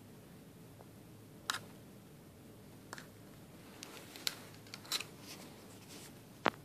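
A few sharp clicks and taps very close to the microphone, scattered irregularly against a quiet room hum, the loudest near the end.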